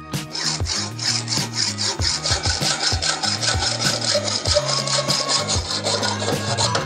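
Hacksaw cutting through a steel bicycle fork steerer tube clamped in a bench vise, in steady back-and-forth strokes. The sawing starts right at the beginning and stops shortly before the end.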